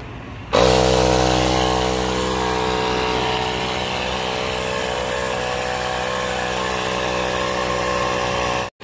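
Portable air compressor switching on about half a second in and running steadily, pumping up a run-flat tire to a preset 32 PSI.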